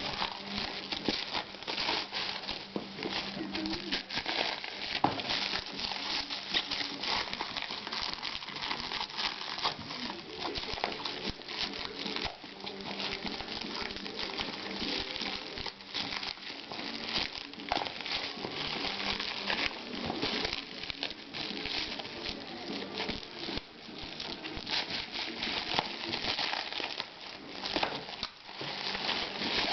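Plastic and cardboard packaging being handled and unwrapped, crinkling and rustling continuously with many small clicks and taps.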